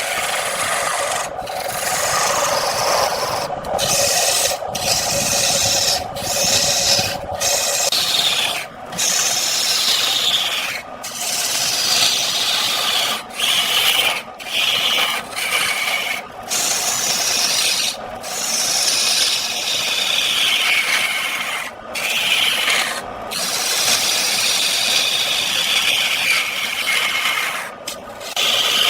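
Turning tool cutting wood spinning on a lathe: a continuous scraping hiss in repeated passes, each sliding down in pitch, broken by short gaps every second or two as the tool comes off the wood.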